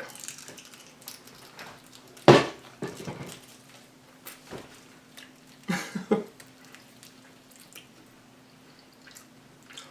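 Eating sounds at a table: scattered clicks and crunches of food and dishes, the sharpest about two seconds in, and two short hummed vocal sounds near six seconds, over a faint steady hum.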